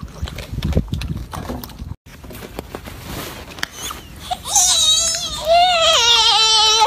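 Golden snub-nosed monkey giving a high, wavering, cry-like call. It starts about four seconds in, lasts about two and a half seconds and steps down in pitch toward the end.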